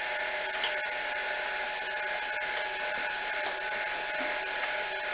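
Grizzly mini mill running with a boring head cutting out the bore of a V-belt pulley: a steady whir with several steady tones and a high hiss, a little noisy.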